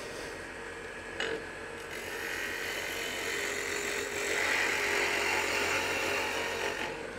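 Wood lathe spinning a dry branch, which the turner believes is pear, while a gouge roughs it down: a steady cutting hiss that grows louder from about two seconds in, over the lathe's steady hum. A light tap comes about a second in.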